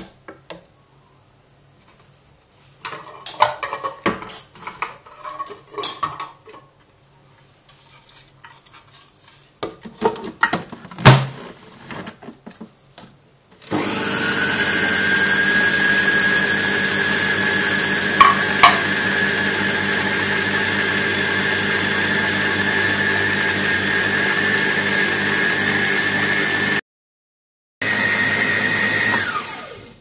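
Arçelik Robosett food processor motor starting about halfway through and running steadily with a whine, grinding roasted peanuts and oil into smooth peanut butter, then winding down and stopping near the end. Before it starts, a spoon knocks and scrapes against the plastic bowl.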